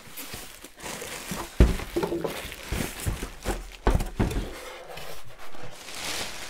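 Plastic wrapping crinkling and polystyrene foam packing pieces being handled and pulled off a sewing machine. Irregular small knocks run through it, with two heavier thumps about one and a half and four seconds in.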